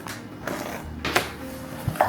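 Soft background music, with a few short sharp scrapes and clicks from a cardboard package being opened, about a second in and near the end.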